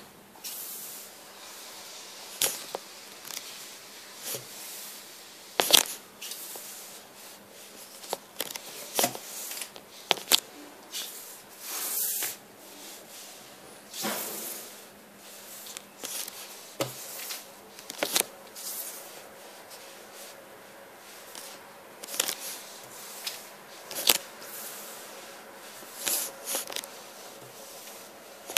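Handling noise close to the microphone: irregular clicks, taps and rustles, roughly one every second or two, over a faint hiss.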